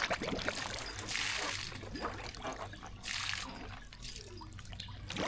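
Water sloshing and dripping in a trash can used as a cold-plunge tub as a person ducks under, with two short rushing splashes about a second and three seconds in.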